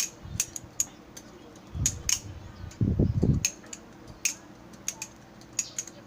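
Balisong (butterfly knife) being flipped: irregular metallic clicks and clacks as the handles swing and strike each other and the blade, with a couple of dull thumps a couple of seconds and three seconds in.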